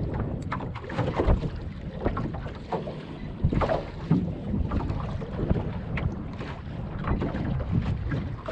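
Wind buffeting the microphone over choppy sea water lapping against a small boat's hull, with irregular slaps and knocks.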